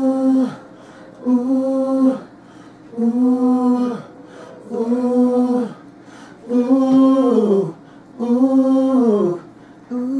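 A single voice sings the same held 'ooh'-like note over and over, about six times, each about a second long and sliding down in pitch as it ends, with short gaps between.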